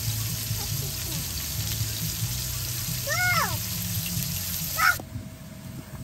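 Bone-in steak sizzling in oil on a hot grill pan, a steady hiss, with a short call that rises and falls about three seconds in. The sizzle cuts off suddenly about five seconds in.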